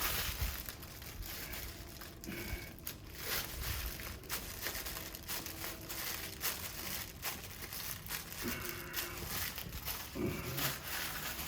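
Crinkly paper face-rest sheet wrapped around a foot, crinkling and crackling irregularly as hands grip and work the foot.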